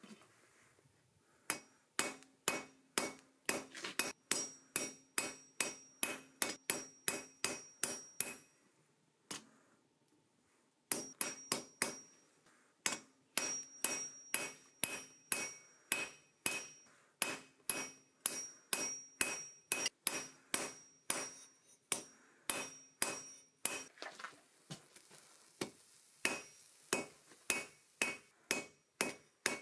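Hand hammer striking hot steel on an anvil in fast, steady blows about three a second, the anvil ringing under each strike. The hammering stops for about two seconds near the middle, then carries on.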